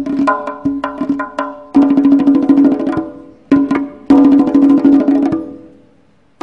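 Tombak (Persian goblet drum) played with the fingers and palms: a run of crisp single strokes over the drum's ringing pitched tone, then two fast finger rolls (riz), the second dying away near the end.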